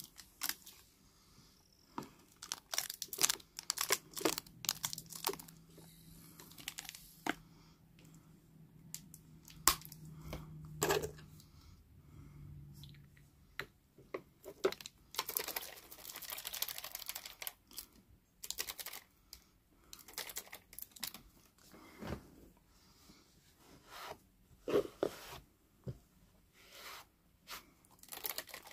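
Scattered clicks, taps and rustling of small objects being handled close to the microphone, with a faint low hum for several seconds in the first half and a longer rustle about halfway through.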